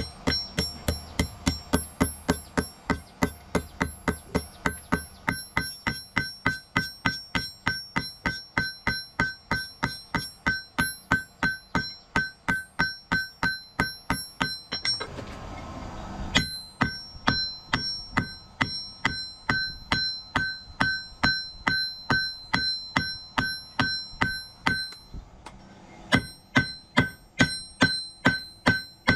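Hammer blows ringing on an anvil at a steady pace of about three strikes a second, forging hot wrought iron into a knife blade. The hammering breaks off briefly about halfway, with a hiss in the gap, and pauses again near the end before resuming.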